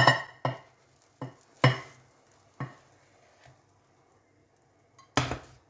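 Frying pan knocking and scraping against a plate as an omelette is slid out of the pan onto it: several short sharp knocks over the first three and a half seconds, then a louder, longer clatter near the end.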